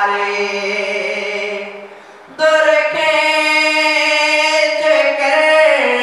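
A man singing a noha, a mourning lament, solo into a microphone. He holds one long drawn-out note, breaks off briefly about two seconds in, then holds a second long note that falls away near the end.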